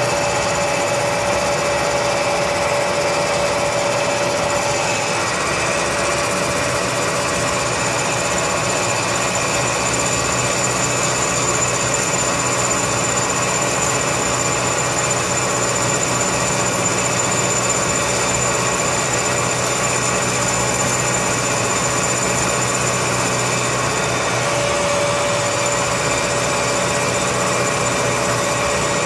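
Bridgeport vertical milling machine running with its end mill cutting into a finished chrome mirror trim piece: a steady, continuous machining drone with a fixed mid-pitched hum and a thin high tone over it.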